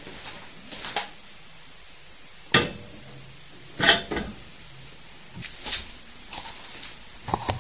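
A few sharp household knocks or clatters in a small room: one about two and a half seconds in, a louder cluster of two or three about a second later, and a lighter knock near the end.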